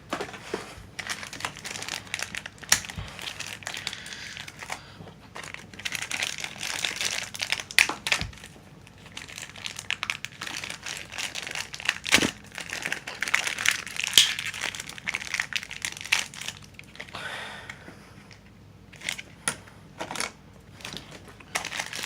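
Blind-box packaging crinkling and rustling as the box is torn open and its contents unwrapped by hand, with irregular sharp crackles and clicks.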